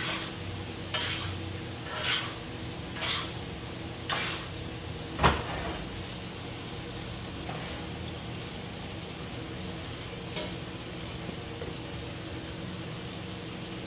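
Steaks sizzling steadily in a hot skillet with oil and butter. In the first few seconds there are a handful of sharp clinks of a utensil against the pan, the loudest a knock about five seconds in.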